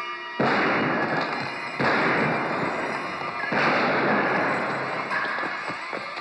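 Three gunshots about a second and a half apart, each sudden and loud with a long ringing tail, over film score music.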